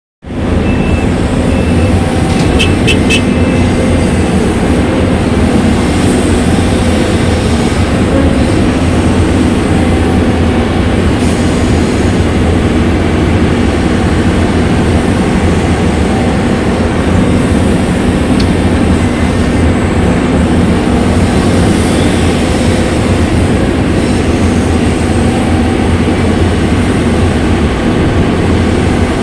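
Caterpillar 320D2 hydraulic excavator's diesel engine running steadily under load while it works. Three quick clicks come about three seconds in.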